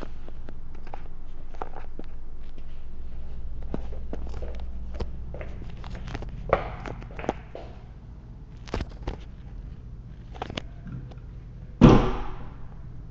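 Scattered footsteps and small knocks on a hardwood floor, with one loud thunk near the end.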